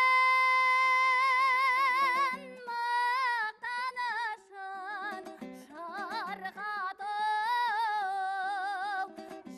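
A woman singing a Kazakh folk song with plucked-string accompaniment. She holds one long note with vibrato for about two seconds, then sings shorter, ornamented phrases.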